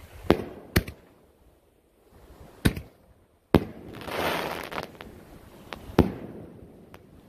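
5-inch canister firework shells with tails going off: a string of sharp booms, about five loud ones and a couple of fainter ones, with a rushing hiss of about a second after the fourth boom.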